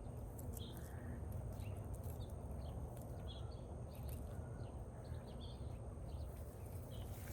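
Scattered short bird chirps over a steady low rumble, with occasional soft taps and scrapes of a hand trowel digging in soil.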